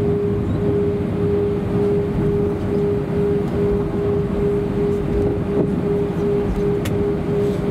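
Cabin noise of an Airbus A320-232 taxiing with its engines at idle. A steady, slightly pulsing hum sits over the low rumble of the wheels rolling on the taxiway.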